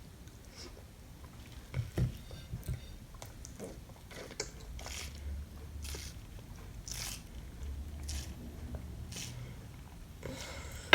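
A toddler eating, with small biting and chewing sounds and scattered soft clicks. There are a few low thumps about two seconds in.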